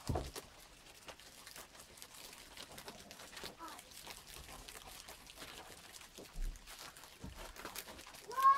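Rabbits chewing and tearing burdock leaves: a run of faint crunching clicks and leaf rustle. A knock at the very start, and a short pitched call just before the end.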